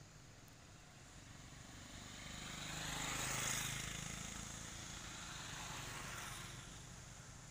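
A motor vehicle passing on the road, its engine and tyre noise swelling to a peak about three and a half seconds in and then fading away.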